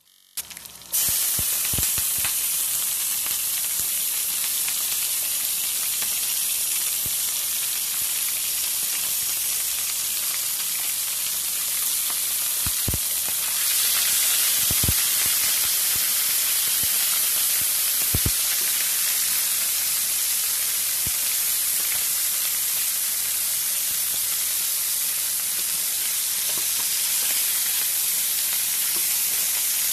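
Garlic and onion sizzling in hot oil in a pan, with a few sharp knocks of a wooden spatula against the pan. About halfway through, chicken pieces go in and the sizzle gets a little louder and brighter.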